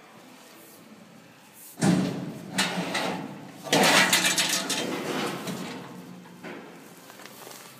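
Machine noise from a stainless-steel batter and breading applicator. Two loud bursts of clattering noise start about two seconds in and again near four seconds, over a low hum, then fade away.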